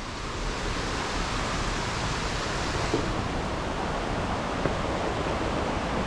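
Steady rushing of flowing water: an even hiss with no distinct events.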